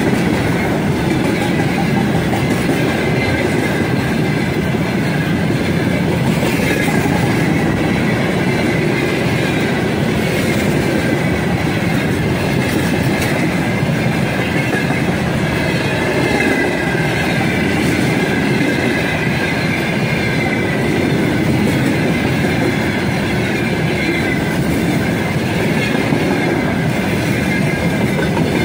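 Heavy freight train of railway tank cars rolling past at speed: a steady loud rumble of steel wheels on the rails, with the clickety-clack of wheelsets over the rail joints and a faint high metallic ringing from the wheels.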